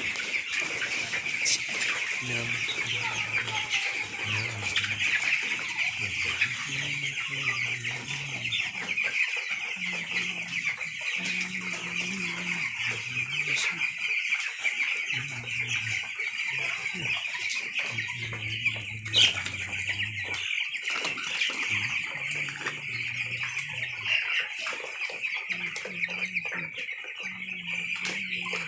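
A large flock of young broiler chickens, about 18 days old, peeping and clucking together in a dense, continuous chorus. A sharp click stands out about two-thirds of the way through.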